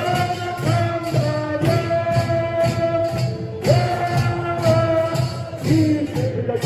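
Music with a steady beat of about two strokes a second under long, held melody notes.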